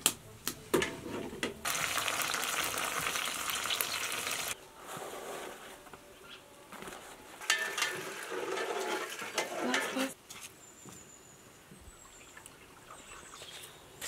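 A series of cooking sounds: a metal pot lid knocks twice near the start, then a few seconds of steady hiss, then liquid poured from a thermos flask into an aluminium pot, followed by quieter ambience.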